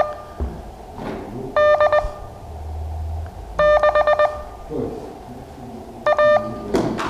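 Morse code practice tone: short keyed groups of dits and dahs in a buzzy single-pitched beep, sent one character at a time with pauses of about one to two seconds between them, for beginners to copy.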